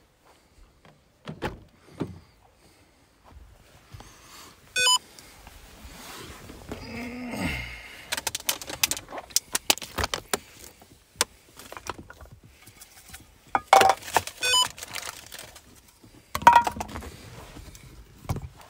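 Handling noise inside a car as a phone is moved around the footwell: rustling, clicks and knocks, with a short electronic beep about five seconds in.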